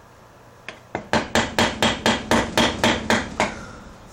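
About a dozen quick hammer taps, about five a second, on a flathead screwdriver wedged into a joint of a Briggs & Stratton small engine to loosen a part. The strikes are metal on metal and each one rings briefly.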